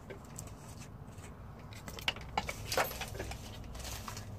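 A few light clicks and clinks of small hard objects being handled on a workbench, loudest in a quick cluster from about two to three seconds in.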